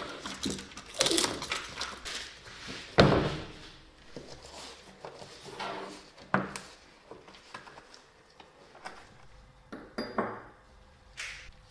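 A series of irregular knocks, thunks and light clatters, the loudest about three seconds in, growing sparser and fainter toward the end.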